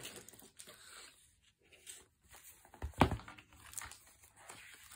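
Paper rustling as a handmade junk journal is handled and its thick pages are opened and turned, with scattered soft clicks and one soft thump about three seconds in.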